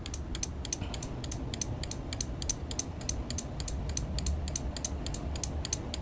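Relays in a homemade capacitor-timed flasher circuit clicking open and shut in an even, rapid rhythm, several clicks a second, as the circuit oscillates and flashes a lamp.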